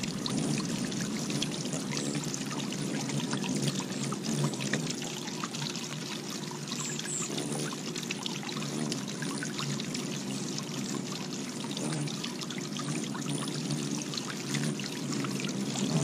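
Water bubbling up and spilling over a flat-topped garden fountain in a steady pouring trickle, with many small splashes from hummingbirds bathing in it. A couple of faint high chirps about seven seconds in.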